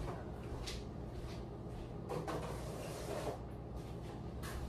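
Faint household handling sounds: a rustle about two seconds in, then a couple of light knocks or clicks, like a cupboard or container being handled, over a low steady hum.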